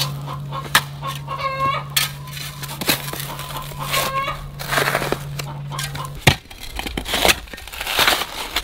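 Steel shovel chopping and scraping into dry, hard-packed soil, a string of separate strikes. Chickens cluck a few times between the strikes.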